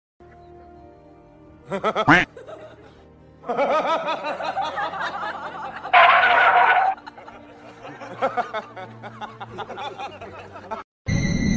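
Background music with a person snickering and laughing, loudest about six seconds in.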